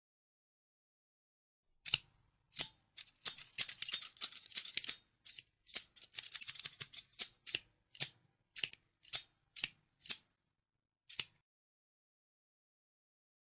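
Scissors snipping: after a short silence, a string of crisp snips starts about two seconds in. It bunches into quick runs of rapid cutting in the middle, then thins to single snips about half a second apart and stops near the end.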